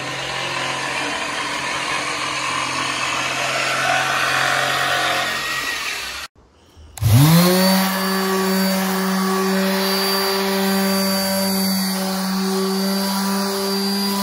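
A power tool runs for the first six seconds, then after a short break a handheld detail sander spins up with a rising whine and runs steadily on an MDF panel.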